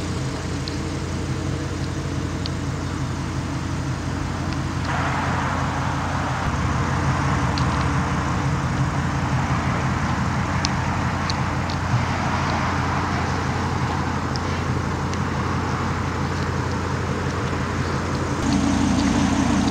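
Audi R8's V10 engine idling steadily, a low even hum. A hiss of background noise joins it about five seconds in and drops away near the end, when the engine hum gets louder.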